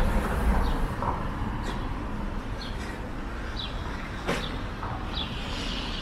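Windy street ambience: a steady low rumble of wind on the microphone mixed with traffic noise, with short high chirps about once a second and a single sharp click about four seconds in.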